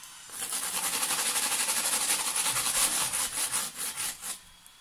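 Slotted plastic spatula rubbing and pressing over a flatbread in a frying pan: a steady rasping scrape made of many fine rapid ticks. It starts just after the beginning and stops abruptly a little after four seconds in.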